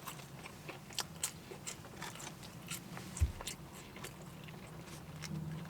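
A person chewing and biting fast food close to the microphone, with small crunches and clicks and a low thump about three seconds in.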